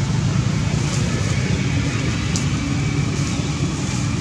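Steady low rumble of outdoor background noise, with a single short sharp click about two and a half seconds in.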